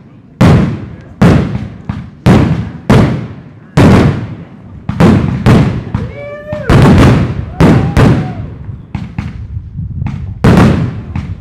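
Aerial firework shells bursting in quick succession: about a dozen loud bangs, one every second or so, each trailing off over about half a second.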